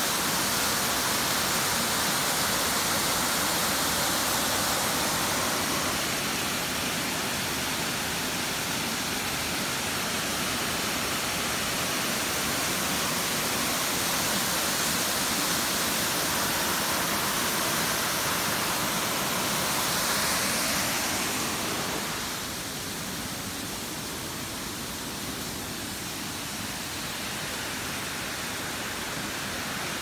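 Waterfall pouring over rocks into a pool: a steady rush of falling water, becoming a little softer and duller about 22 seconds in.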